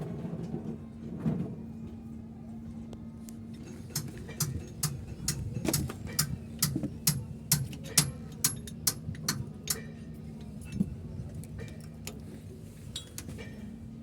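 A run of sharp metal-on-metal taps, about two a second, starting about four seconds in and stopping about ten seconds in, with one more a little later. The taps come while a truck differential is being stripped down, over a steady low hum.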